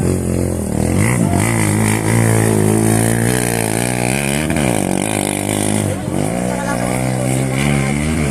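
Off-road racing engines revving, their pitch climbing and dropping over and over, with sharp dips in pitch about halfway through and again about two-thirds of the way in.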